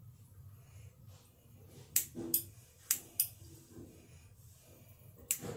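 Sharp clicks and snaps from hands working tape and scissors on a water balloon: a pair about two seconds in, another pair about three seconds in and one near the end, with brief squeaks between.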